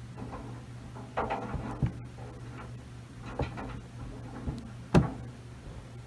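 Maytag Commercial Technology front-load washer turning its drum slowly to sense the weight of the load, with a steady low hum and several knocks and thumps as the load tumbles, the loudest about five seconds in.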